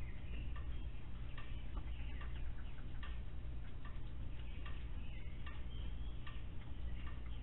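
Outdoor night audio from a security camera's microphone: a steady low electrical hum with irregular faint clicks and short high chirps scattered through it.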